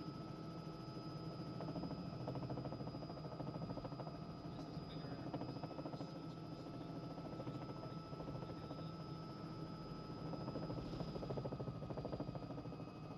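Robinson R66 turbine helicopter heard from inside the cockpit during a descending approach: a steady drone of engine and rotor with a faint constant high whine.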